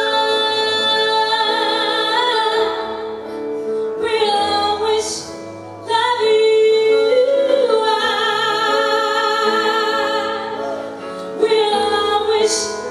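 A woman singing live into a microphone, holding long notes with a wavering vibrato, backed by a band with keyboard.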